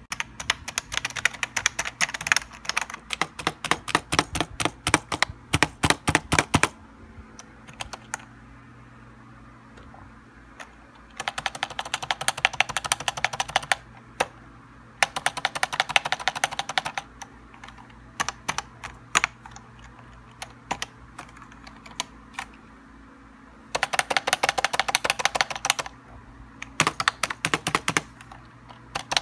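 Typing on a Tt eSports Commander mechanical-style gaming keyboard: fast runs of key clicks, broken by short pauses and scattered single key presses.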